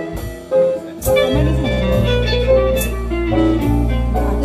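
A live jazz combo playing a slow ballad: guitar melody lines over a low double bass line that comes in about a second in, with light cymbal touches.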